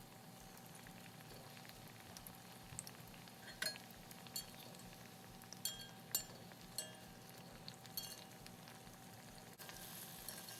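Batter-coated jackfruit pods deep-frying in oil: a faint, steady sizzle with a few sharp ticks scattered through it.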